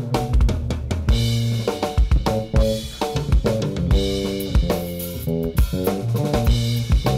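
Electric bass playing a funk line over a fast drum-and-bass drum beat. The bass mixes in muted dead notes and slid double stops.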